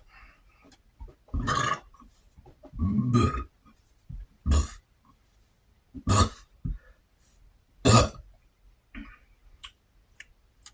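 A man burping about five times in a row, short loud belches spaced a second or two apart, one of them longer and deeper.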